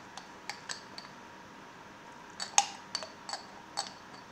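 Metal spoon scraping and clinking against the inside of a glass sauce jar, in scattered light taps, with the loudest clink about two and a half seconds in.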